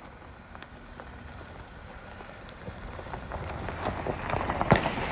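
Jeep Wrangler crawling slowly over a rocky dirt trail: its tyres crunch and pop on loose gravel and stones, getting louder as it comes closer, with a sharp crack near the end.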